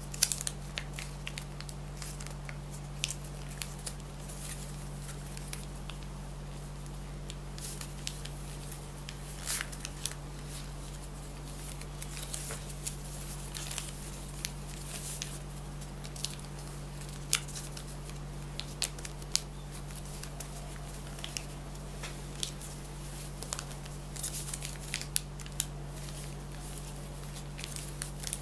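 Paper being handled and folded by hand, with many irregular crisp crackles and rustles of the sheet being creased, over a steady low electrical hum.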